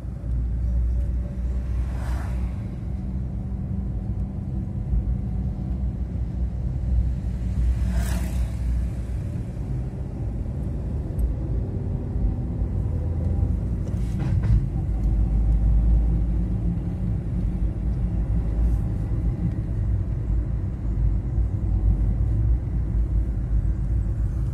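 Steady low rumble of a car driving: engine and tyre noise on the road. Three short knocks or clicks are spread through it.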